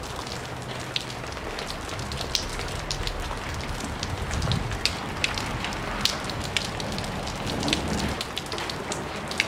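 Wood fire burning down in a metal brazier, crackling with scattered sharp snaps over a steady hiss as the last board of firewood keeps flaming.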